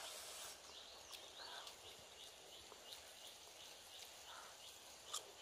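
Faint outdoor ambience with a run of short high chirps, about four a second, fading out after the first few seconds, and a few sharp small clicks, the loudest near the end, from a bamboo skewer picking at snail shells.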